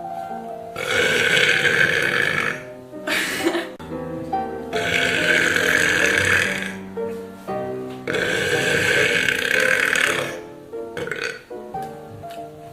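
A girl burping three times, each a long, loud burp of about two seconds, over background music.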